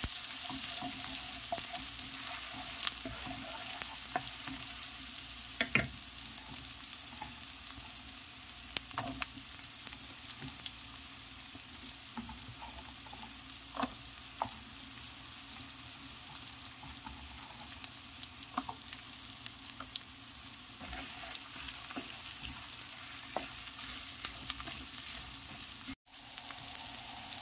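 Grated ginger, then chopped onion, sizzling steadily in melted butter in a frying pan, with a wooden spatula stirring and now and then clicking against the pan.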